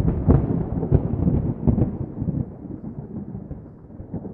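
Thunder-like rumble with a few heavy booms in the first two seconds, slowly dying away: a sound effect laid under an animated logo intro.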